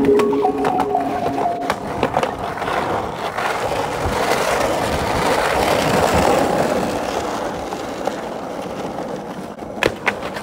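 Skateboard wheels rolling over concrete and asphalt, a steady rolling rumble that grows strongest in the middle, with sharp clacks of the board near the end as the skater pops a trick.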